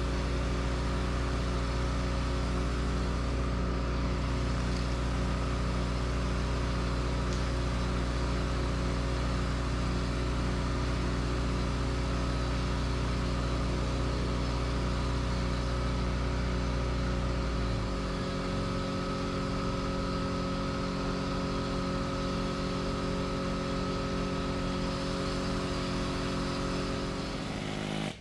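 An engine running steadily at a constant speed. About two thirds of the way through, its low note changes and it gets a little quieter, and it cuts off sharply at the very end.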